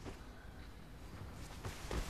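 Quiet room with faint rustling of clothing and a few soft thuds of movement, strongest near the end, as a person gets up from a bed.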